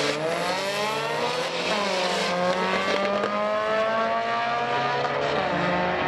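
Two drag-racing cars accelerating hard off the start line, engines revving up through the gears: the pitch climbs, falls back at each upshift, and climbs again.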